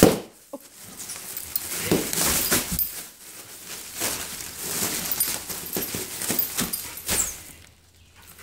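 A dog rooting through a cardboard box of plastic air-pillow packing and crumpled kraft paper: irregular crinkling and rustling of plastic and paper that dies down briefly near the end.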